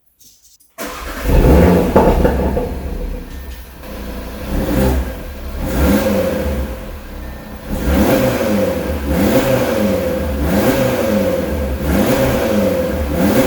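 2019 Audi RS3's turbocharged 2.5-litre inline five-cylinder engine on its stock exhaust, starting up about a second in with a loud flare, then idling. It is revved several times, with quick rising-and-falling blips about every second and a half in the latter half.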